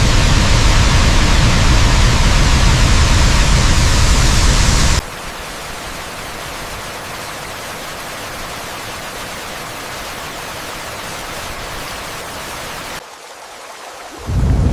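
Heavy, steady rain ambience with a deep rumble for the first five seconds, then cutting abruptly to a softer, thinner rain hiss that drops lower still near the end.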